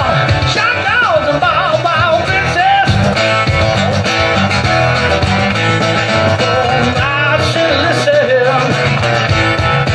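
Small live band playing a song on acoustic guitar, electric guitar and keyboard, with wavering, bending notes in the first few seconds.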